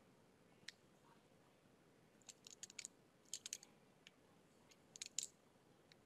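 Near silence broken by faint, sharp clicks: one about a second in, then small clusters of them, the taps of a stylus on a tablet screen while writing.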